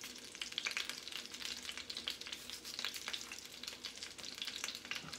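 Salmon fillet searing skin-side down in hot oil in a 7-inch cast iron skillet, a steady sizzle with a dense crackle of small pops.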